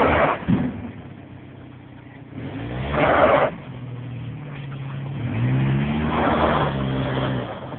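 A minivan's engine revs up and down in pitch while it pushes a dumpster. Three loud rushing surges come about three seconds apart.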